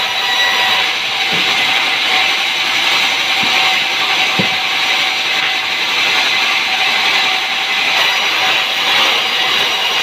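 Sawmill saw cutting through timber: a steady, loud, high hiss, with a few faint low knocks in the first half.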